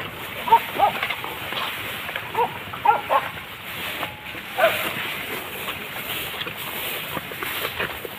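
Hunting dogs yelping on a chase: about six short, high yelps in the first five seconds over a steady background noise.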